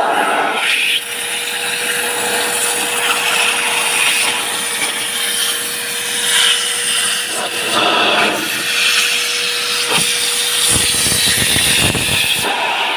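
Vacuum cleaner running while its nozzle is worked over the car's interior, a steady whine and hiss with scraping and rubbing against the upholstery; the steady tone drops out about ten seconds in.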